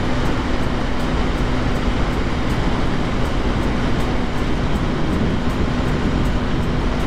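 KTM Duke motorcycle cruising at a steady speed, with a loud rush of wind over the microphone and the engine holding one steady note.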